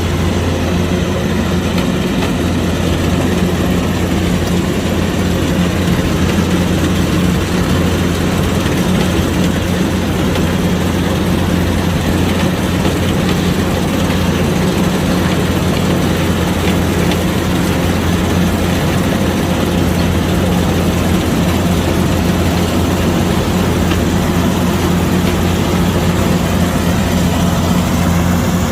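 Kubota DC105X combine harvester running steadily, its diesel engine a constant, unchanging low drone.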